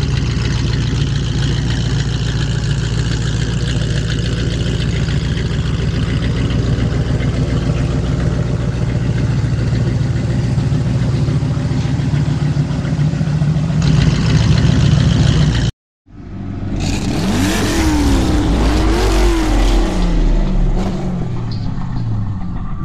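The 351 Cleveland Cobra Jet V8 of a 1969 Mustang Fastback running steadily, growing louder for a moment before it cuts off abruptly about two-thirds of the way in. A swooshing logo sound effect with rising and falling tones follows.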